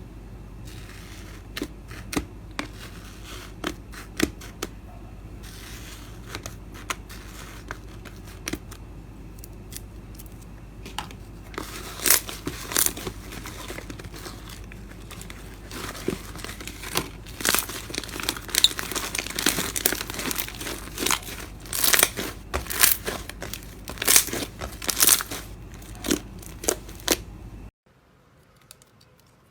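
Slime being squeezed and stretched, giving a run of crackling, popping clicks. They are sparse at first and grow denser and louder about halfway through, over a low steady hum that cuts off shortly before the end.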